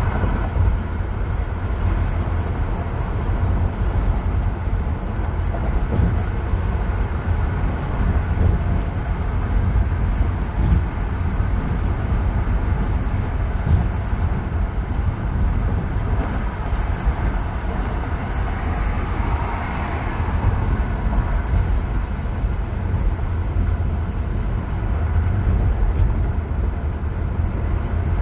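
Steady low road rumble and tyre noise of a car driving on a freeway, heard from inside the vehicle.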